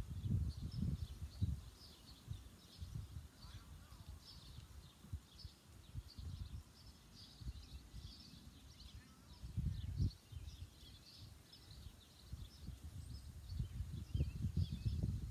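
Small birds chirping in a steady stream of short, high calls, several a second, with low gusts of wind rumbling on the microphone, strongest near the start, about ten seconds in, and toward the end.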